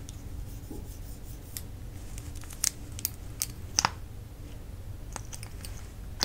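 Sharp clicks and taps from a plastic makeup tube handled close to the microphone as its wand applicator is pulled out, with long nails on the plastic. The clicks come in a cluster of four or five, a few seconds in, and a few lighter ones near the end.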